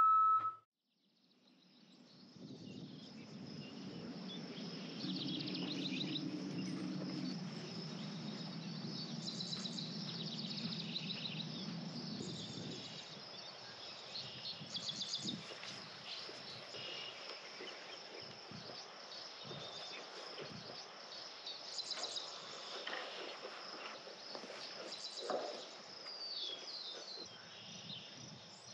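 Outdoor rural ambience: a steady high insect drone with birds chirping over it, and a low hum under it for roughly the first twelve seconds.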